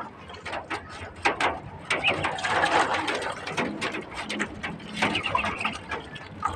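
Month-old ducklings crowding at a bucket of water: an irregular clatter of splashing, bills in the water, flapping wings and feet scrabbling on wire mesh, busiest a couple of seconds in.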